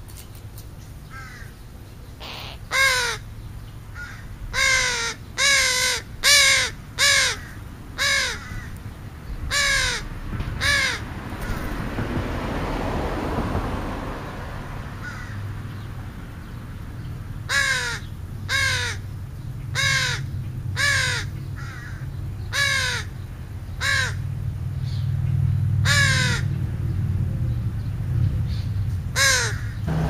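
Crow cawing: two runs of short, harsh caws, each caw dropping in pitch, with a pause of several seconds between the runs.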